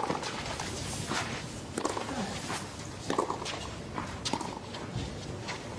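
Tennis rally on a clay court: a string of sharp racquet strikes and ball bounces, with the players' footsteps on the clay.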